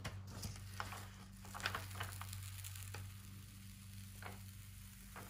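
Faint paper rustling with scattered light crackles as the white adhesive backing sheet is peeled off an encaustic print. A steady low hum runs underneath.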